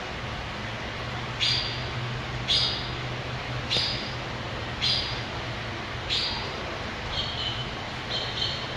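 Short high chirping calls repeating about once a second, turning to thinner, clearer notes near the end, over a low steady hum.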